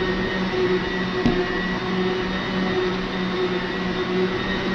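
Arno Planetária Essencial stand mixer running steadily, its motor humming as the beaters whip a milk-and-emulsifier ice cream base to build up its volume. A single brief click comes about a second in.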